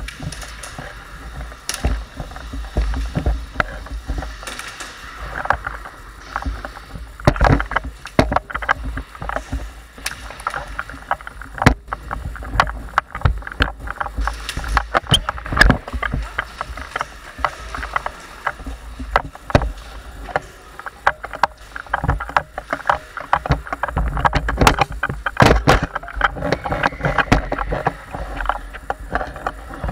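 Handling noise on a body-worn camera as an airsoft player moves: irregular knocks, clicks and rustling of gear, over a steady low rumble.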